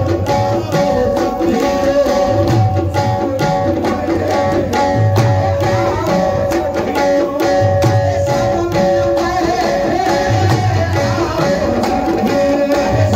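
Qawwali music played live: harmonium holding steady notes while tabla keeps a rhythmic drum pattern, with no voice.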